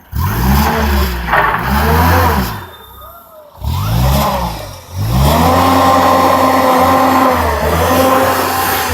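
An engine revved up and down three times in quick bursts, then held at a steady high speed for the last few seconds.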